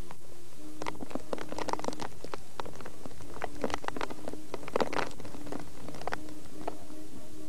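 Footsteps of several people walking on hard ground: irregular clicking steps in two bunches, about a second in and again around four to five seconds in.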